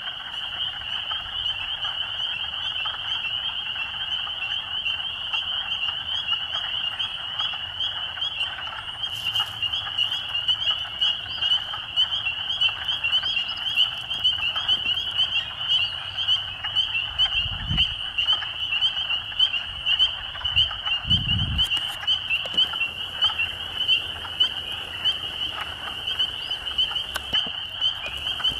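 A dense chorus of frogs calling steadily: many overlapping high-pitched trilling calls that merge into one continuous pulsing sound.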